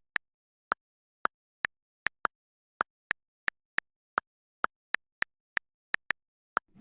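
A run of sharp single clicks, about two or three a second at uneven spacing, with dead silence between them.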